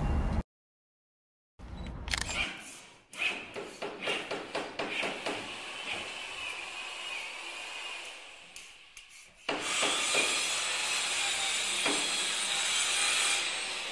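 Workshop tool sound effects over a segment intro: a quick run of knocks and clicks, then, from about two-thirds of the way in, several seconds of a steady power-tool whir like a drill.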